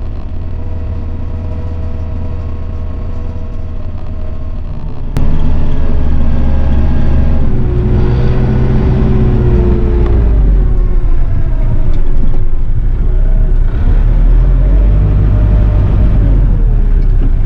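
Vehicle engine running under way, getting much louder about five seconds in, with its pitch rising and falling as the engine speed changes.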